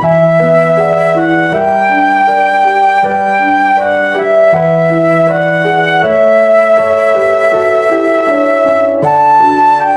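Instrumental background music: a flute-like melody of held notes over sustained low bass notes, changing every second or two.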